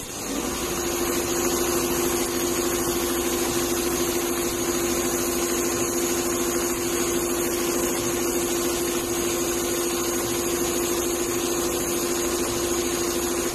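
Four-head computerised leather pattern sewing machine running steadily: a machine hum with one steady tone that winds up just after the start and holds.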